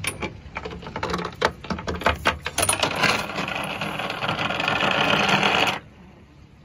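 Waves from a passing boat's wake slapping the hull of a small five-metre boat (Safter 500 Kabin): a run of knocks and clatters, then heavy splashing of water at the bow that stops suddenly near the end.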